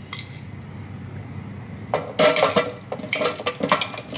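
A spoon scraping and clinking against a bowl as chopped vegetables are tipped into an air fryer basket. Light clicks at first, then a run of clattering from about two seconds in.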